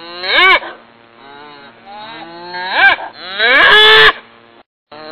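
A large bull mooing three times: short calls about half a second in and just before three seconds, then a longer, louder one near four seconds. Each call rises and falls sharply in pitch.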